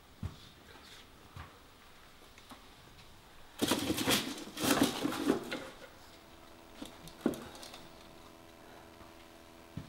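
Rummaging in the trays of an open suitcase: a couple of seconds of rustling and small knocks as objects are handled, starting about three and a half seconds in, with a single sharp click later.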